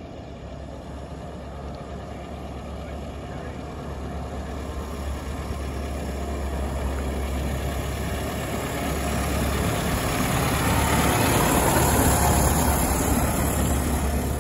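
Vintage double-decker bus's engine running as the bus drives up, growing steadily louder as it approaches and loudest as it passes close by near the end.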